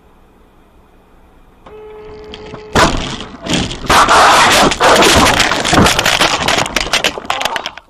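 A car crashing and rolling over, heard from its own dashcam: a steady tone for about a second, then a sudden loud impact about three seconds in. About five seconds of violent crashing, crunching and shattering glass follow as the car tumbles.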